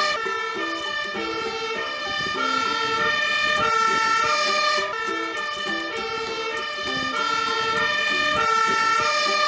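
Fire engine's two-tone siren sounding steadily, alternating between a high and a low note about once a second. It comes from an aerial-ladder fire engine (MAN truck with a Magirus Multistar ladder) responding with blue lights on.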